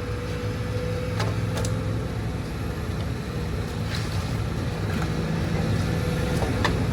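An engine running steadily with a low drone, with a few sharp knocks or clicks over it.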